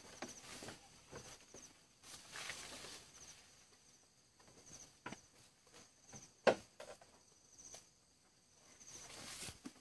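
Scattered light rustles and crackles, like movement through dry vegetation, with one sharp snap about six and a half seconds in. Behind them, a faint high insect chirp repeats in short trills.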